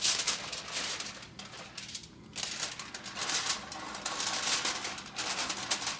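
Aluminium foil crinkling and rustling as hands fold and press it around a slab of ribs, with a short lull about two seconds in.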